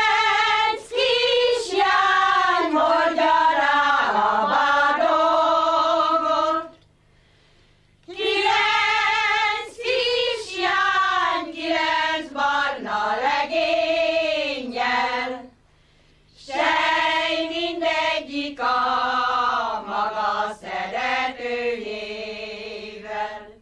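A group of older women of a Palóc folk ensemble singing a Hungarian folk song in unison, with no instruments. The song comes in three long phrases with a brief breath between each.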